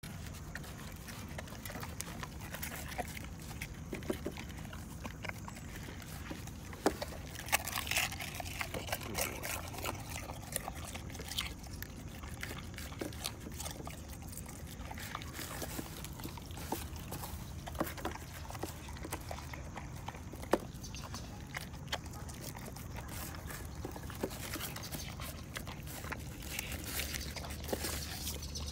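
Dogo Argentino puppy eating a raw meat meal from a steel bowl: wet chewing and smacking, with irregular sharp clicks all through.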